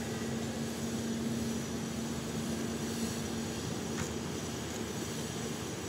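Steady low mechanical rumble with a constant hum, like a running engine or machine.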